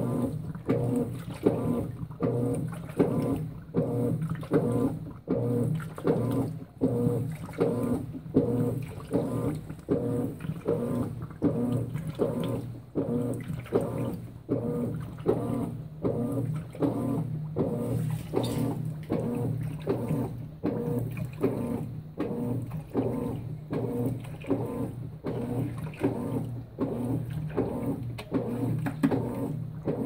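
Consul 16 kg top-load washing machine agitating a soaked duvet on its duvet cycle. The motor hums under a steady back-and-forth rhythm of about one and a half strokes a second, with water and bedding sloshing in the drum on each stroke.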